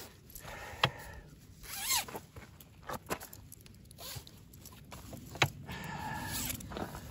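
Zip on a Tracker V2 weighing and retaining sling being pulled closed in several short runs, with a few sharp clicks, shutting a carp inside the soft mesh sling.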